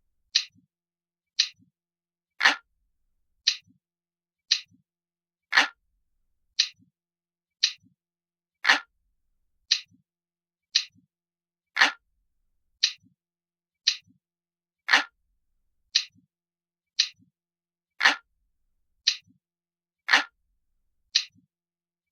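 Mechanical clock ticking steadily, about one tick a second, with every few ticks a fuller, heavier click.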